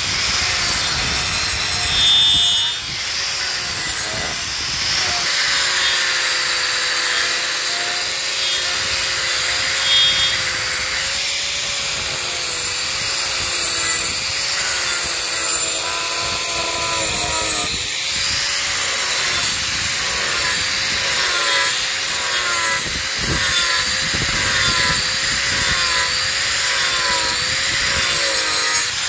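Angle grinder with a toothed steel wood-rasp disc (Rotarex Black Mamba) carving wood: the motor's whine, its pitch wavering up and down, over the rasping of the disc's teeth tearing through the wood.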